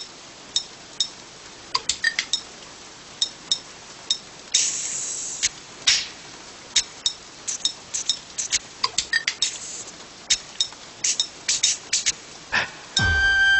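Metal spanners clinking in an irregular rhythm of sharp, ringing strikes over a steady hiss of falling rain. Near the end a deep falling swoosh gives way to the start of music.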